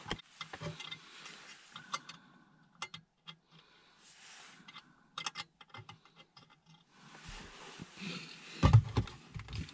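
Small clicks, taps and rustling of plastic mount pieces and small screws being handled and fitted at a car's rear-view mirror stem, with a few louder, heavier thumps near the end.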